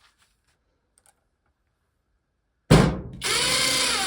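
Near silence, then about two-thirds of the way in a Skil PowerCore 12 (12-volt) 1/4-inch impact driver starts with a sudden loud jolt and runs on steadily.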